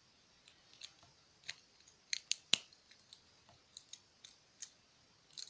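Small hand tools clicking and snapping against a wristwatch's tiny metal and plastic parts as it is taken apart: scattered sharp clicks, with a quick cluster about two seconds in and the loudest snap about half a second later.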